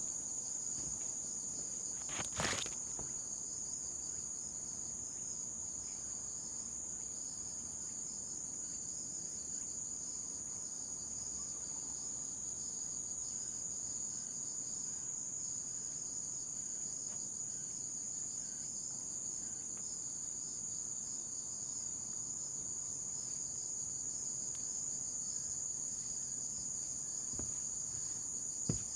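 Steady, high-pitched chorus of insects trilling without a break. A single thump about two seconds in and a lighter one near the end.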